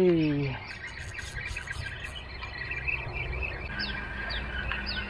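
Birds chirping, with faint insect buzz; near the end a run of short falling chirps repeats about twice a second.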